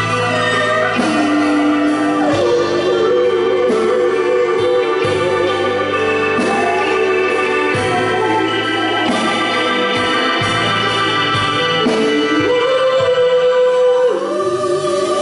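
Live band playing a Motown-style number with a steady beat and sustained keyboard chords, while a singer holds long notes with vibrato.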